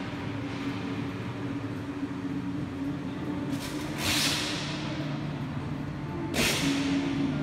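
Exhibition-hall ambience: a steady hum with a low held tone, broken by two short whooshes about four and six and a half seconds in.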